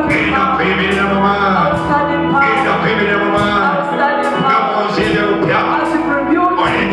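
Worship song: a man singing over a band playing held chords and a steady beat.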